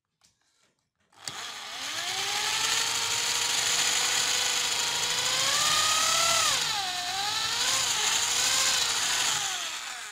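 Electric drill boring a dowel hole into a wooden board. The motor spins up about a second in and runs steadily. A little past halfway its pitch dips as the bit bites into the wood, then it winds down near the end.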